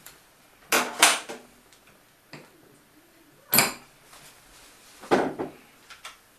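Hard knocks and clatter of parts being handled on the lid of a prototype automated cooking machine as its food pusher is worked: a double knock about a second in, a sharp single knock a little past the middle, and a short cluster of knocks near the end.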